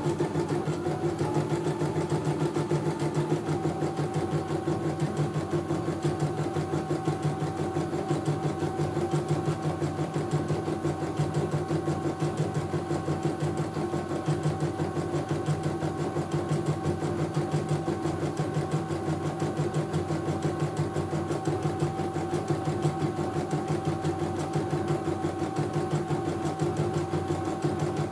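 CNY E900 computerised embroidery machine stitching a test design, its needle running in rapid, even strokes while the hoop is moved under it.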